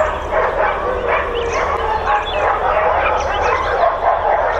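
Many dogs in a boarding kennel barking at once, their barks overlapping into a continuous din with no pauses.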